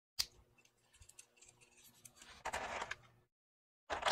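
Die-cast figure weapon parts being handled: a sharp click just after the start, scattered light clicks, then two short bursts of clicking and rattling against the plastic blister tray, one about halfway through and one near the end.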